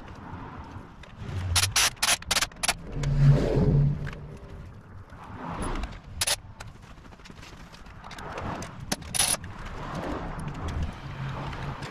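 Scattered sharp clicks and metallic clinks of hand tools and bolts being handled and fitted to a motorcycle handlebar and handguard, with a louder dull knock about three seconds in.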